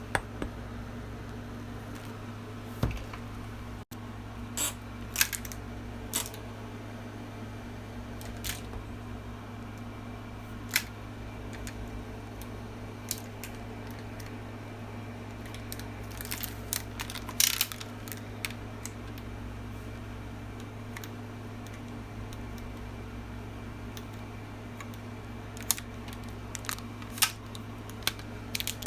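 Irregular sharp plastic clicks and clacks from a toy gun being handled and reloaded, with a cluster of quick clicks about two-thirds of the way through, over a steady low hum.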